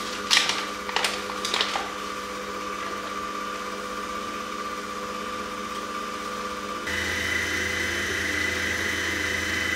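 Stand mixer's motor running steadily as its K-beater mixes cookie dough, with a few knocks and paper-bag rustles in the first couple of seconds. About seven seconds in the mixer's hum changes, becoming louder with an added higher whine and a low drone.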